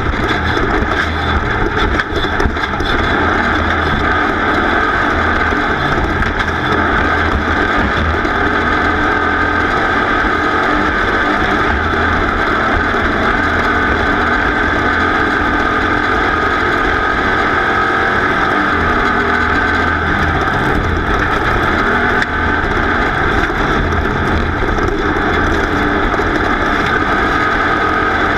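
A racing vehicle's engine running steadily and loudly under way, with wind noise mixed in.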